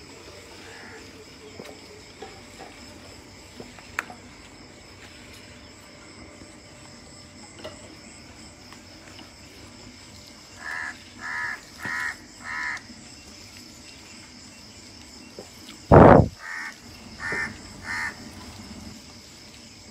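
A crow cawing: a run of four short caws, then, after a short loud thump, three more caws.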